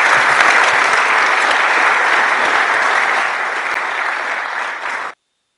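Audience applauding steadily, stopping abruptly about five seconds in.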